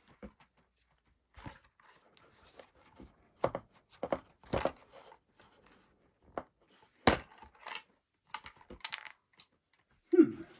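Hands rummaging through small model parts and plastic packaging while searching for a lost control rod: irregular rustling, crinkling and clicks, with a sharp knock about seven seconds in.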